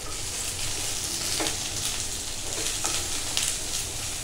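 Julienned carrots, capsicum and green chilies sizzling in hot oil in a stainless steel wok, with a steady hiss, while a wooden spatula stirs them and scrapes across the pan a few times.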